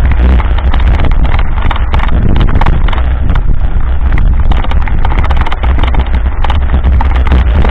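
Mountain bike riding over a rough sandy dirt road: loud wind buffeting on the camera microphone and a continuous, irregular rattle and knocking of the bike and camera mount jolting over the ruts.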